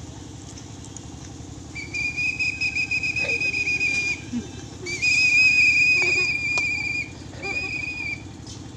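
A whistle, likely a pea whistle, blown in three blasts: two long ones of about two seconds each, then a short one, each a high, warbling tone.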